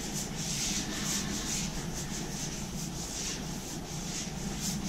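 Putty knife scraping and spreading drywall compound over a patch in quick repeated strokes, about three or four a second.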